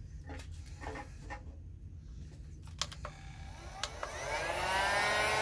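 A few faint handling clicks, then an electric heat gun is switched on about three and a half seconds in: its fan motor spins up with a rising whine and a growing rush of air.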